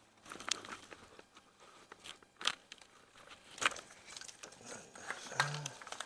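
Hand work on a car's engine bay while parts are taken off: scattered sharp clicks and knocks of tools and parts being handled, with light scraping and rustling in between.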